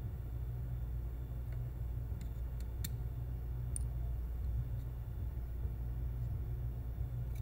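Metal tweezers clicking against a tiny ceramic plate while dredging food pieces in flour: about five light clicks between one and four seconds in, the sharpest near three seconds, over a steady low hum.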